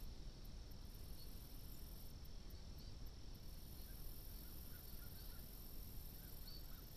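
Steady low hiss and rumble of an outdoor camera microphone, with a few faint, short, scattered bird chirps.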